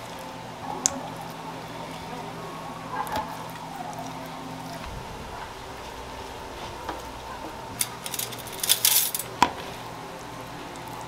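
Kitchen handling sounds as mackerel are prepared on a wooden cutting board and in steel trays: small clicks and knocks over a steady background hum, with a brief clatter and scraping about eight to nine seconds in, the loudest part.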